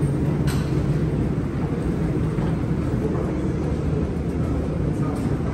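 Steady low rumble of an underground metro station, with a sharp click about half a second in and a fainter one near the end.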